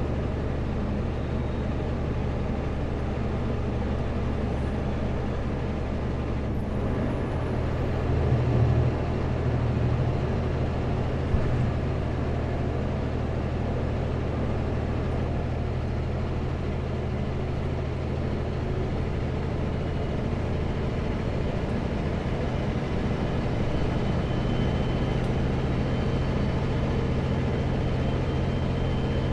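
Kenworth W900L semi truck's diesel engine droning steadily as heard inside the cab while driving, under tyre and road noise on a wet highway. The engine note changes about six and a half seconds in, and there are a couple of short knocks near nine and eleven seconds.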